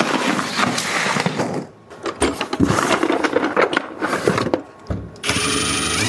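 Clattering handling noises as parts are dug out of a cardboard box, then a cordless drill running steadily from about five seconds in, pressed against the plywood wall.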